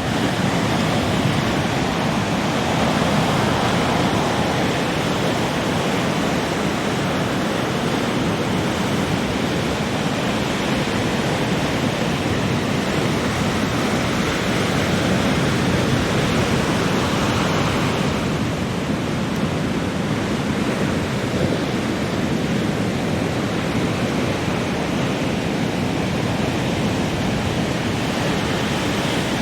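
Heavy ocean surf: big waves breaking and washing in a continuous, dense roar that swells and eases slightly, with no single crash standing out.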